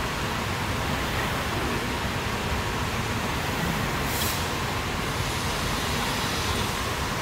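Steady, even running noise of an automatic CNC glass cutting table with its cutting-head gantry moving over the glass sheet. A short high hiss comes about four seconds in.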